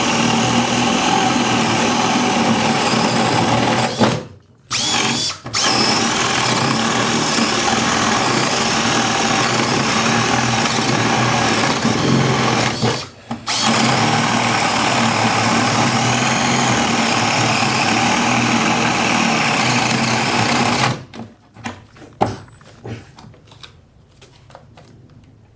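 Milwaukee 2602-20 M18 cordless hammer drill boring a 1.5-inch spade bit through 2x8 lumber under load, loud and steady. It breaks off briefly twice, then stops about 21 seconds in, followed by a few scattered clicks and knocks.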